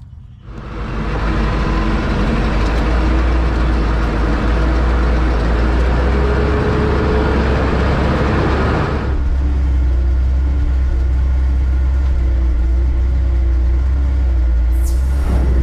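Large diesel farm machine running steadily with a heavy low drone and a broad rushing noise on top; about nine seconds in the rushing drops away, leaving the engine's low hum. A brief falling high whistle comes near the end.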